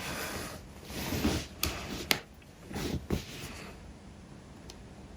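Handling noises while a magnetic USB-C cable is plugged in: short rustles and a few sharp clicks, the sharpest about two seconds in.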